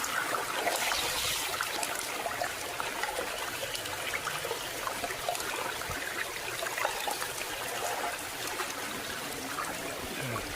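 Water trickling and running steadily over rocks, a small waterfall or creek flow.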